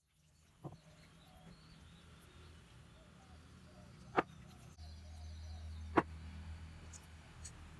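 Steel hydraulic-jack parts set down on a cloth-covered surface: three sharp knocks, a faint one about half a second in and louder ones about four and six seconds in, over a low steady hum.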